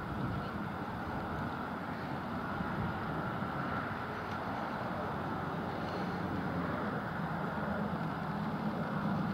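A pair of Class 37 diesel locomotives with English Electric V12 engines running steadily under power, getting a little louder near the end.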